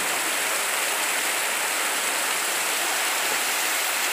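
Heavy rain pouring down on a street, a steady, even hiss of falling water.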